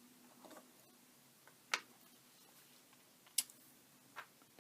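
Four sparse, sharp little clicks and taps from small tools and parts being handled while a drone is taken apart, over a faint low hum.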